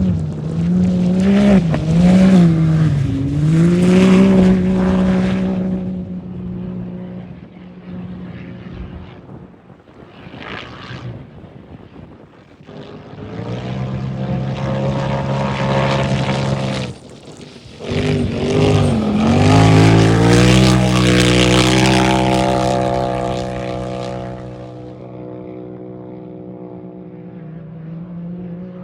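Off-road racing UTV engines at high revs as the cars go by, the engine note dipping and climbing back twice. Louder passages come near the start and again from about two-thirds of the way in, with a quieter lull between and a fade near the end.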